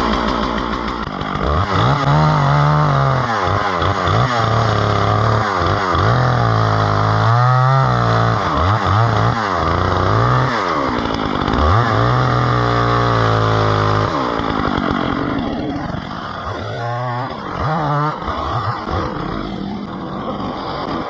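Chainsaw running, its revs rising and falling again and again as it cuts; about two-thirds of the way through it drops to a lower, more uneven level.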